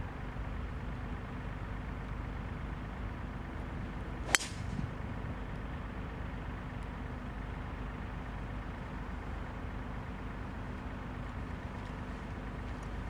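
A single sharp crack of a 5-wood striking a golf ball off the tee about four seconds in, over a steady low background rumble.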